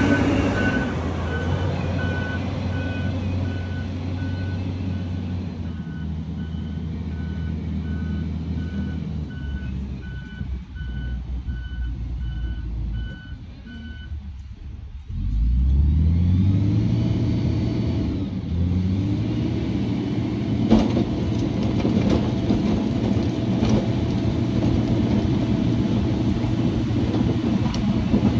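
XCMG motor grader running while its reversing alarm beeps at a steady, even pace. The beeping stops a little before halfway, the diesel engine drops low, then revs up and runs steadily.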